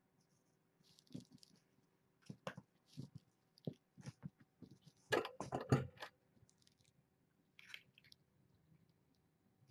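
A kitten chewing and biting, with irregular crunches and clicks. The loudest run of crunches comes about five seconds in.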